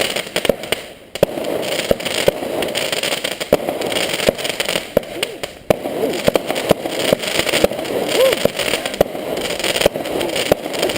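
Fireworks going off: an irregular series of sharp bangs and pops, several a second, over a steady background din.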